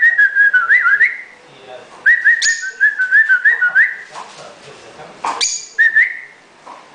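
Lovebirds calling: runs of quick, bouncing whistled chirps in three bouts, cut through twice by loud, sharp shrieks.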